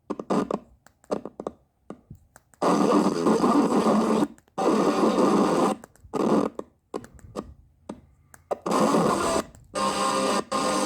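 Avon FM scanner wristwatch radio, played through the RY-611's amplifier, scanning the FM band: loud bursts of hiss and static that cut in and out several times with silent gaps between them.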